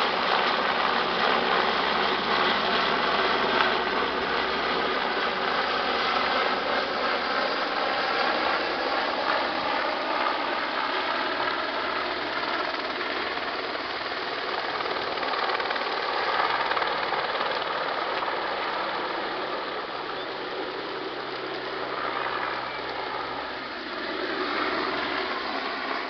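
Police firefighting helicopter running, a steady roar of rotor and turbine with a faint wavering whine, slowly growing fainter.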